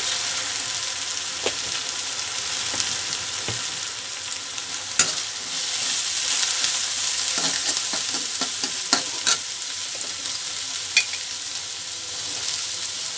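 Sliced onions, green chillies and spice paste sizzling in hot mustard oil in a metal karahi, stirred with a steel spatula. The spatula scrapes the pan steadily and gives a few sharp knocks against it, the loudest about 5 seconds in and again around 9 and 11 seconds.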